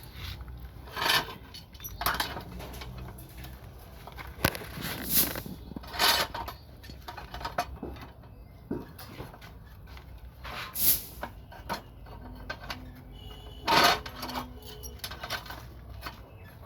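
Steel reinforcing bar clinking and knocking as it is handled and bent into rings. The clinks are irregular, usually a second or more apart, and a few stand out louder than the rest.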